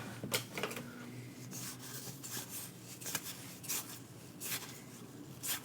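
Pokémon booster pack being opened and its trading cards slid and handled: a string of short, crisp rustles and scrapes at an uneven pace.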